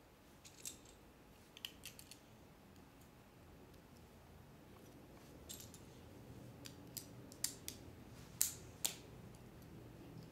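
Plastic Lego bricks clicking and tapping as they are handled and pressed together, in scattered sharp clicks, a few at a time, with the loudest about eight and a half seconds in.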